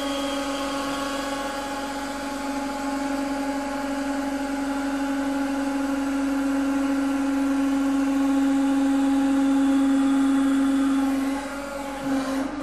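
Hydraulic press pump running with a steady hum as the ram loads a large steel hex nut. The hum grows a little louder as the load builds, then drops off about eleven seconds in.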